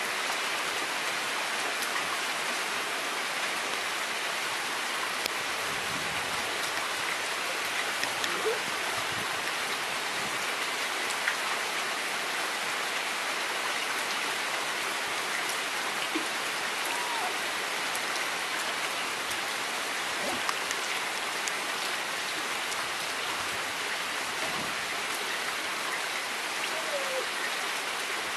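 Steady rain falling on a soggy lawn, puddles and a wet paved path, with occasional louder single drops ticking.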